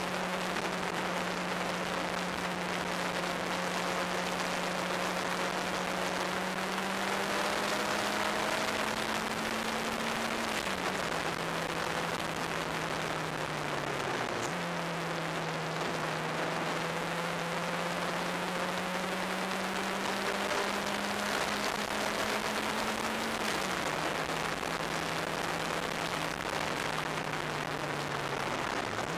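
Turbocharged racing car's engine heard from the open cockpit under heavy wind rush. The engine note climbs slowly and drops sharply several times where the driver shifts or lifts, and falls away near the end as the car slows.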